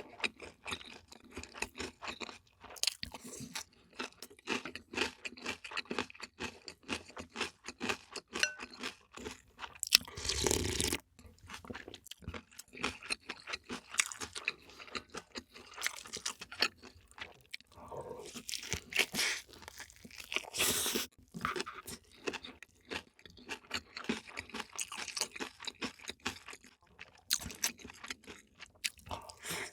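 Close-miked eating: chewing and crunching crunchy food with many rapid crackles and crunches, and a louder, longer noisy burst about ten seconds in.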